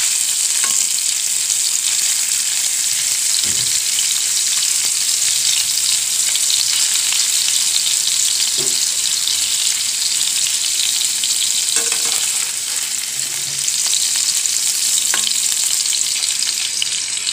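Paneer cubes sizzling in ghee in a nonstick kadai over a low gas flame: a steady, high frying hiss. A few light taps and scrapes of a metal spatula turning the cubes come through it.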